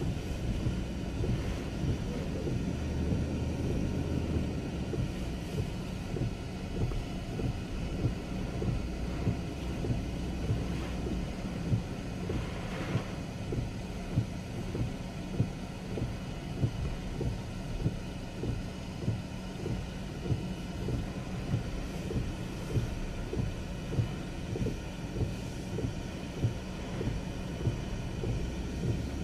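Inside a moving car in hurricane wind and heavy rain: a steady low engine and road drone with the hiss of rain and wind on the body. A regular knock about every two-thirds of a second comes from the windshield wipers running fast.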